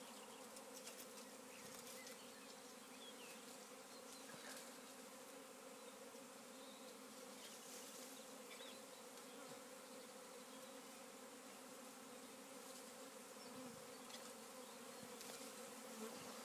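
A honeybee swarm buzzing in flight: a faint, steady hum.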